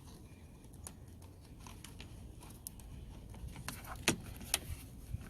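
Scattered light clicks and taps of a plastic door liner being worked under the door's plastic and rubber trim, with two sharper knocks about four seconds in.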